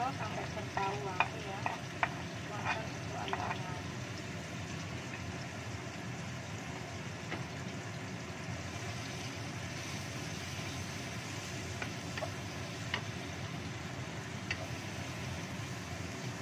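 Ground spice paste sizzling as it fries in oil in a wok, stirred and scraped with a wooden spatula. Several sharp taps and knocks in the first few seconds as the paste is knocked off its container into the pan.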